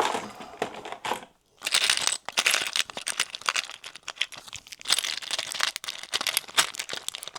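Small model-railway spare parts, wheels among them, being rummaged through by hand: dense rattling and clicking with crinkling, almost without pause after the first second and a half.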